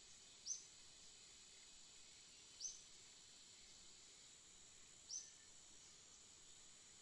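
A small bird chirping three times, short high notes that drop slightly in pitch, about two and a half seconds apart, over a faint steady high-pitched hiss.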